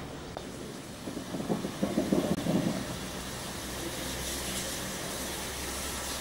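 An engine idling steadily, with a flurry of louder irregular knocks about a second in and a hiss rising near the end.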